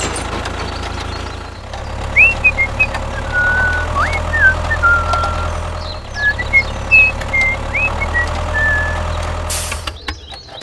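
A tractor engine running steadily, with short high whistling chirps over it. The engine stops just before the end.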